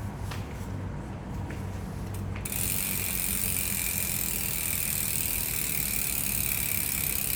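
Aeroic AM-8.5 rear bicycle hub with six pawls and 72 clicks, ratcheting as the wheel freewheels. A few separate clicks come first, and about two and a half seconds in they merge into a steady, high-pitched buzz.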